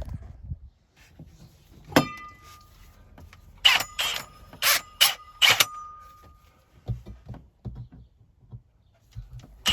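A sharp metallic clank that leaves a brief ringing note, then a quick series of short rattling clatters, one of them also ringing, followed by a few soft knocks: metal tools being handled while a hole cutter is readied to cut through the van body.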